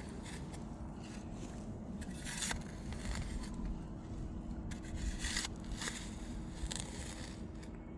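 A digging tool scraping and chopping into clay soil in a few separate strokes, with soil crumbling.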